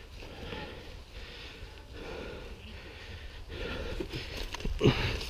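A person breathing hard close to the microphone, a series of audible breaths, with a louder short sound near the end.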